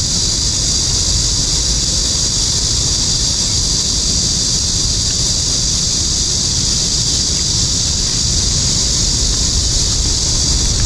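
Steady outdoor ambience: wind rumbling on the microphone under a constant high-pitched hiss.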